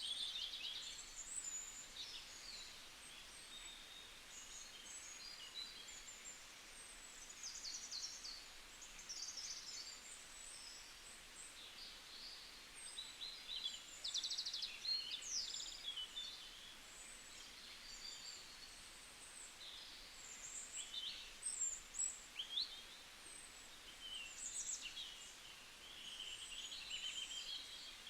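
Forest ambience: several songbirds calling and singing at once, short chirps and trills overlapping, over a faint steady hiss.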